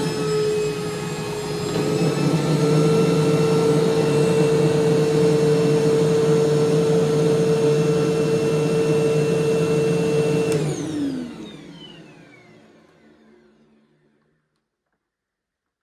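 2005 Hoover Preferred upright vacuum cleaner running with a steady high motor whine. It is switched off about ten seconds in, and the motor winds down with a falling pitch and fades out over a few seconds.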